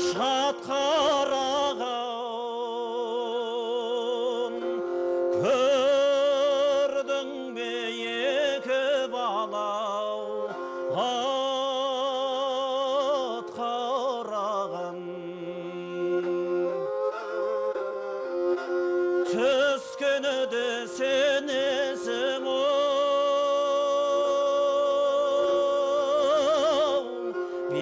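Kobyz, the two-stringed Kazakh horsehair-bowed fiddle, playing a melody with wide vibrato over a steady drone note.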